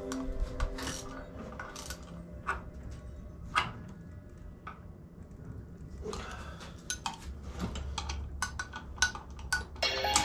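Scattered light metallic clinks and taps of tools and parts being handled in a workshop, with a short stretch of scraping about six seconds in.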